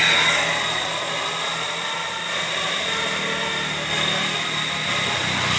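Bus running, a steady whooshing rush with a thin high whine over a low engine hum, as the last of a telolet horn tune dies away in the first moment.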